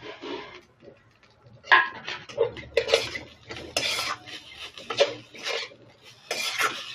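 A spatula scraping and stirring crumbly ground-soybean filling around a non-stick wok, in a series of quick, irregular strokes.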